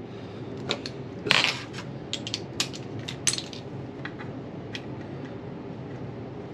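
Light metal clinks and clicks from hand tools on a transmission case, about a dozen sharp ones spread over the first few seconds, as a detent bolt is tightened to torque.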